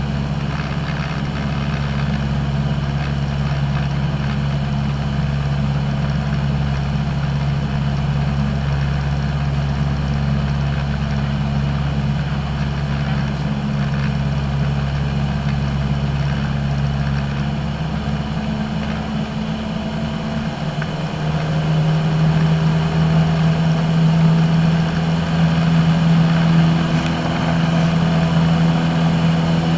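Piston engine and propeller of a single-engine light aircraft droning steadily, heard from inside the cockpit. About two-thirds of the way through the drone rises in pitch and gets a little louder.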